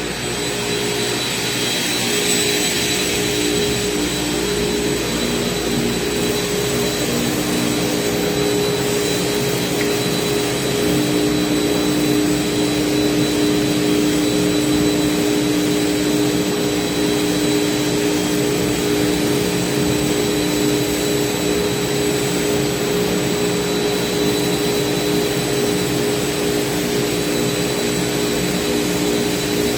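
CNC router spindle running and cutting slot car track parts: a steady machine noise with a constant whine.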